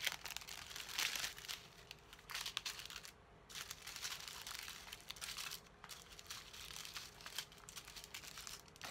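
Small plastic baggies of diamond-painting drills crinkling and rustling as they are picked up and laid down in rows, in irregular bursts with a short pause about three seconds in.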